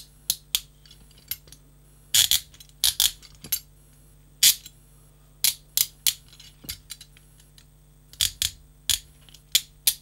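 Pink-painted carbon-steel chain handcuff (Algemas Brasil AB36RS) being closed, its swinging bow ratcheting through the lock in sharp metallic clicks, some single and some in quick runs of two or three. The tone is relatively bright, which comes from the cuff's thin sheet-metal build.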